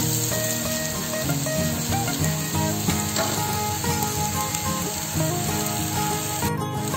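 Julienned carrots and red bell pepper sizzling steadily as they stir-fry in hot oil in a wok, with a spatula stirring them. Background music with a melody plays along.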